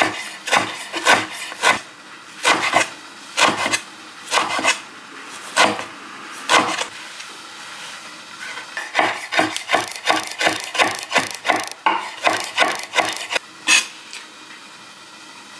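Chef's knife chopping blanched greens on a wooden cutting board: a series of sharp knocks of the blade on the board. After a pause about halfway, a quicker run of chops follows.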